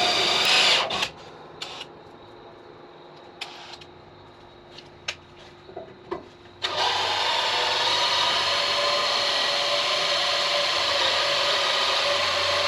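Electric drill with a uni (step) bit cutting into steel, a steady rubbing, rasping sound. It runs for about the first second and stops. A few clicks and knocks follow, and the drilling starts again a little past halfway and runs steadily.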